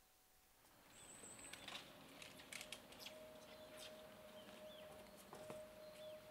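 Faint forest ambience starting about a second in: small birds chirping in short repeated calls, a faint steady hum, and scattered clicks and taps of footsteps and a door as someone steps out onto a trailer's metal steps.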